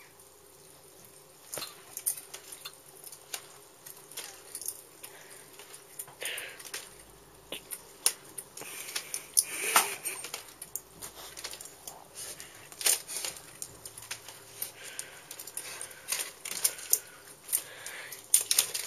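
Scattered light plastic clicks and clatter from a robotic toy dog as a chocolate Labrador noses and mouths it, with a few short hissy patches in between.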